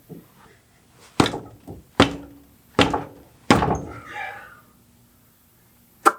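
Four heavy metal-on-metal blows a little under a second apart, each with a short ring, then one sharper knock near the end: striking at a backhoe hydraulic cylinder's stuck gland to break it loose.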